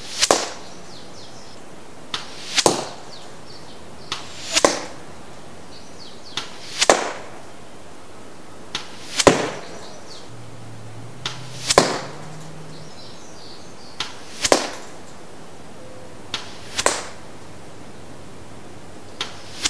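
Arrows flying in toward a bag target, one roughly every two and a half seconds, about nine in all. Each arrow's vanes make a hissing whoosh that swells to a sharp peak as it arrives, and each is preceded about half a second earlier by a faint click.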